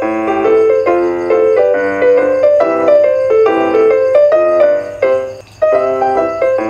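Background piano music, a light tune of short, quick notes, with a brief break about five seconds in before it starts again.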